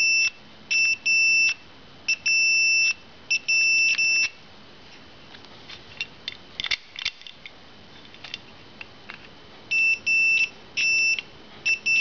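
Digital multimeter's continuity beeper giving a high-pitched tone that cuts in and out in short, uneven beeps as the probes sit on the ignition switch terminals. The beeping shows an intermittent connection, which the owner cannot yet pin on a faulty ignition switch or the meter. There are scattered handling clicks in the middle, between two runs of beeps.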